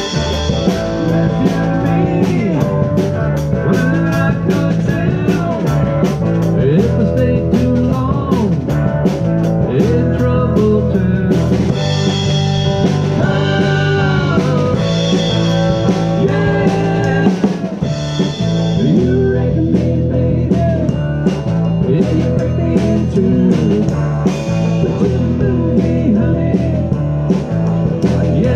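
Live rock band playing: electric guitar, electric bass and drum kit, with the drums keeping a steady beat.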